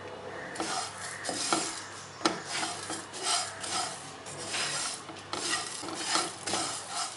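Plastic spatula scraping and stirring whole coriander and cumin seeds around a nonstick frying pan as they dry-roast: repeated rasping strokes from about half a second in, with a few sharp taps of the spatula on the pan.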